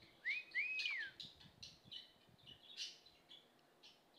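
Two clear whistles near the start, each rising and falling, followed by a budgerigar's soft, scattered chirps and chatter.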